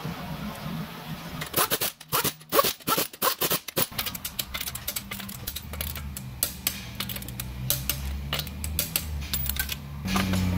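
Lug nuts being spun onto wheel studs by hand: quick, irregular metallic clicking and rattling of the nuts on the threads, starting about one and a half seconds in and thinning out after about four seconds.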